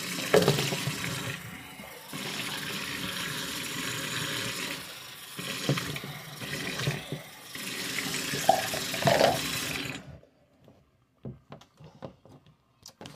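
Bathroom sink tap running into a ceramic basin with a steady splashing rush that dips and swells a few times. The tap is turned off about ten seconds in, followed by a few faint knocks.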